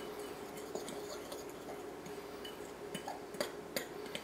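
Metal fork stirring dry flour and baking powder in a glass bowl: soft scraping with scattered light ticks where the fork touches the glass, a few of them sharper in the second half.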